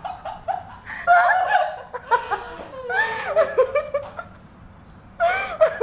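A woman laughing in several short bursts, with a quieter pause about four seconds in.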